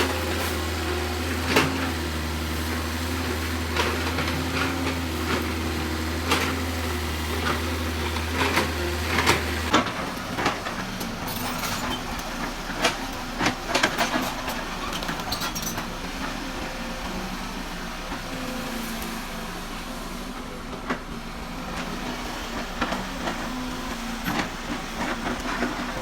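Excavator working: a steady low engine hum with many sharp metallic clanks and knocks. The hum cuts off suddenly about ten seconds in, and irregular clanking and knocking carry on after it.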